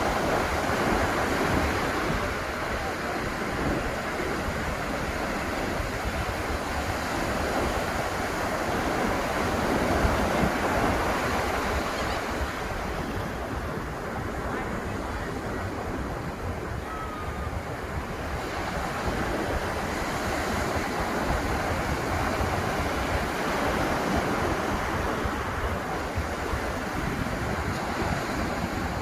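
Ocean surf washing onto a beach: a continuous rush of breaking waves that swells louder as each wave comes in, notably near the start and again about ten seconds in.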